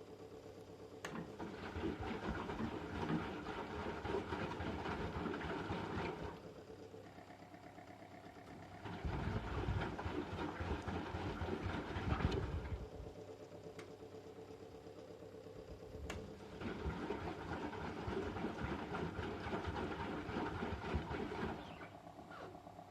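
A 1997 Merloni-built M eurotech EW 450 washing machine tumbling the drum in the rinse phase. The motor runs in three bursts of about four to five seconds each, with short quieter pauses between them.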